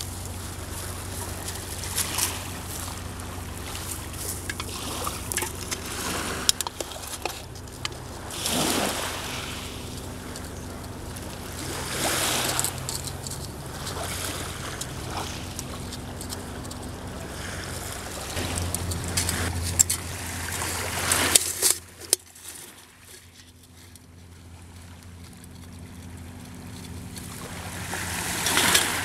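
Small waves washing onto a gravel shore in slow swells, over a steady low hum of a boat engine. Scattered small clicks and scrapes come from a dog licking and nosing an empty beer can on the gravel. The hum drops away for a couple of seconds about two-thirds of the way through.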